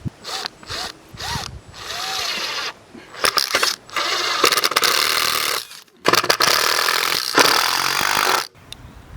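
Cordless power drill driving screws into wood: three short trigger blips with the motor whining up and down, then several longer runs of a second or two each.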